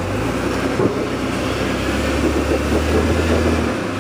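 A Jeep Cherokee XJ's engine runs under load as the lifted Jeep crawls up a steep rock ledge. The low engine note grows stronger about halfway through and drops back just before the end.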